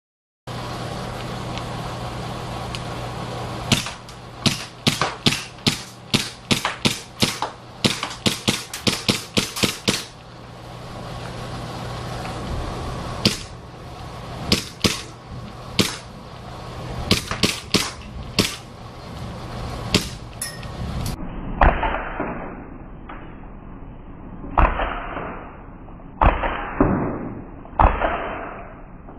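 E&C Glock 17 gas blowback airsoft pistol firing: sharp cracks with the slide cycling, fired in quick strings of about two or three shots a second, then single shots a second or two apart. A steady low hum lies under the first part, and after about 21 s the shots sound duller.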